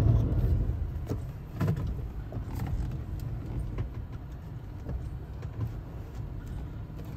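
Cabin sound of a 2011 Toyota FJ Cruiser's 4.0-litre V6 pulling slowly in low-range four-wheel drive over rough ground: a low engine rumble that eases off in the first second or two, with scattered light knocks and rattles.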